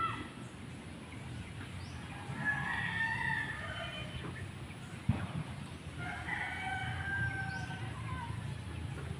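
Roosters crowing: one long crow about two seconds in and another about six seconds in. About five seconds in, a single sharp thud of a hand digging tool striking stony soil.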